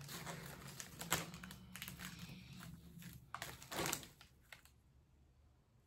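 Faint crinkling and light clicking from a package of crochet braiding hair being handled, dying away to near quiet about a second before the end.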